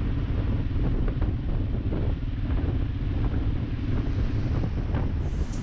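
Wind buffeting the microphone on a moving motorcycle, a steady low rumble with a hiss over it.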